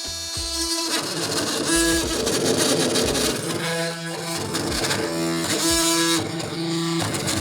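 Oscillating multi-tool buzzing as its bi-metal blade cuts through clean framing lumber, the buzz coming and going in stretches over a rasping hiss as the blade bites, with a few low knocks.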